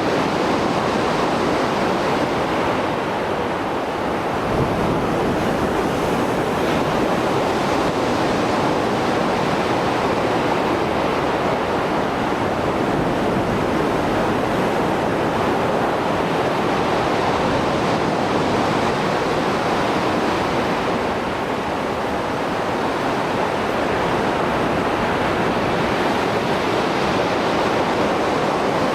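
Sea waves surging and breaking on the shore after a storm, a steady dense rush that swells and eases slowly, with some wind on the microphone.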